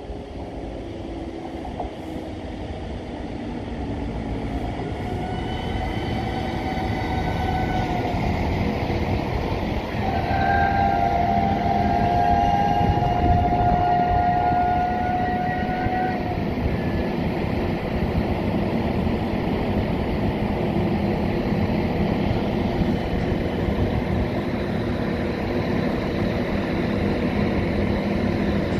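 Northern passenger train running in alongside the platform: a rumble of wheels and running gear that grows louder over the first dozen seconds and then holds, with long steady high-pitched tones about five seconds in and again from about ten to sixteen seconds in.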